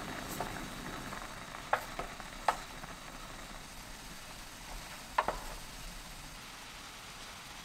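Soy-sauce braising liquid bubbling at a rolling boil while a wooden spoon stirs the quail eggs in the pan. A few sharp knocks of the spoon come about two seconds in and one more about five seconds in.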